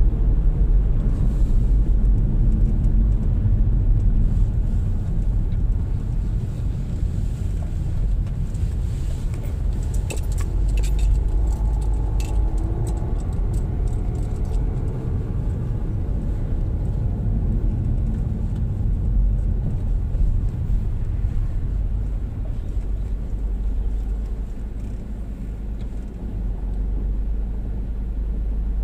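Steady engine and road-tyre rumble heard from inside a moving car, with a short cluster of sharp clicks or rattles about ten seconds in. The rumble eases a little near the end.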